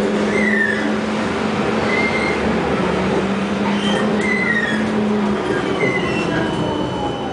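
Electric street tram running on its rails, heard from aboard: a steady low motor hum with short high squeals every second or two. In the second half a whine falls slowly in pitch as the tram slows toward a stop.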